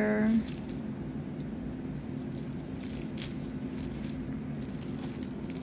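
Faint scattered clicks and rattles of a pearl-bead cluster bracelet and its metal chain being handled in gloved hands, over a steady low hum.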